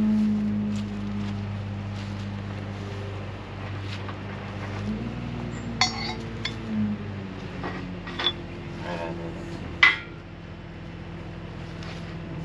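Steel hand tools clinking sharply against the shaft end of a grain auger, a few single metal clinks in the second half, the loudest about ten seconds in. An engine runs steadily underneath, its pitch stepping up and back down partway through.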